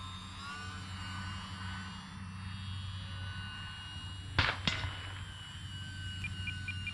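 Small electric RC plane's motor and propeller whining steadily high in the air, holding a steady pitch over a low hum. Two sharp clicks come about four and a half seconds in.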